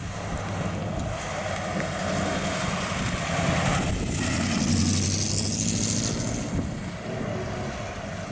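A 1949 Ford F-1 pickup's 239 cubic-inch flathead V8 runs as the truck drives past. The engine note grows louder as it approaches and peaks about five seconds in with a rush of hiss as it goes by, then fades as the truck pulls away.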